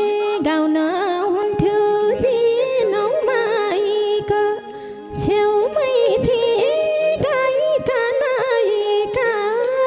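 A woman sings a long, drawn-out and heavily ornamented melodic phrase of Nepali folk dohori over a steady held accompanying note, with a few drum strokes. The singing drops away briefly a little before the middle and then picks up again.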